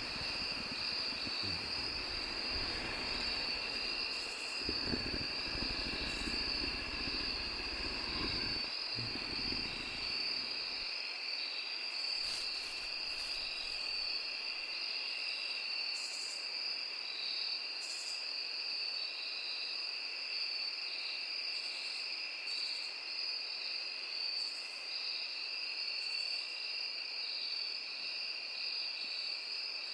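Steady night chorus of crickets, a constant high chirring, with low rumbling sounds during the first ten seconds or so that then die away.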